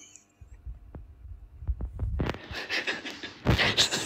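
Low thumps and clicks, then from about halfway a louder rustling and scraping close to the microphone, like handling or moving against it.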